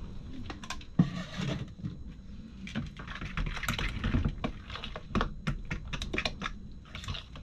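Metal spoon stirring wet banana bread batter in a plastic mixing bowl: irregular clicks and taps of the spoon against the bowl with brief scrapes, the sharpest tap about a second in.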